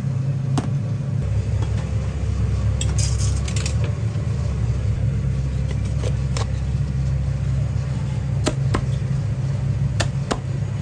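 A few separate sharp chops of a heavy cleaver cutting through a roast duck on a chopping block, over a steady low hum. There is a brief clatter of utensils about three seconds in.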